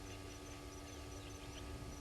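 Faint outdoor waterhole ambience: a high-pitched chirp repeating about four times a second, a few faint bird chirps, and a low steady hum.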